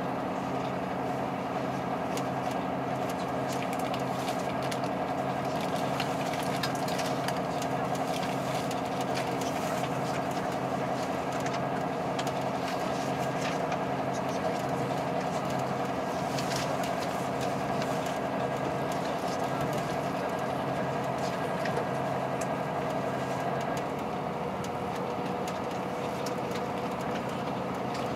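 Diesel express train of the KiHa 183 series running, heard from inside the car: a steady engine drone with the wheels clicking over the rails. Near the end some of the engine's tones drop away and the sound eases a little.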